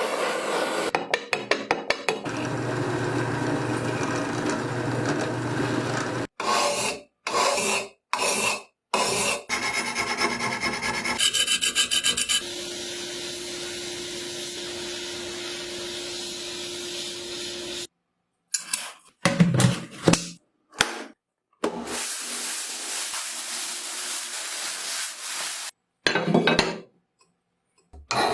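Parts of an antique hand drill being filed, sanded and scraped during restoration, in several short cut-together stretches: steady rasping and rubbing, with a run of quick repeated strokes partway through, each stretch ending abruptly in a brief silence.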